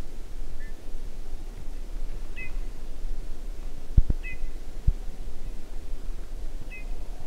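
Eurasian bullfinch calling: short soft notes, one every two seconds or so, four in all. Low thumps about four and five seconds in, over a steady low rumble.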